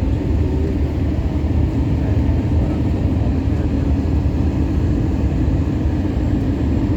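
Steady low rumble of an Airbus A321 airliner in flight on approach, engine and airflow noise heard from inside the cabin, unchanging throughout.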